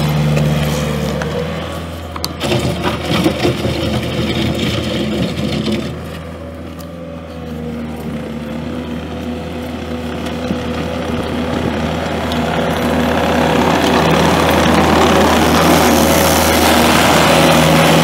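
Four-cylinder turbo diesel (Kubota V3800) of a 2009 Bobcat T320 track loader running steadily, with irregular clanking between about two and six seconds in and growing louder over the last several seconds.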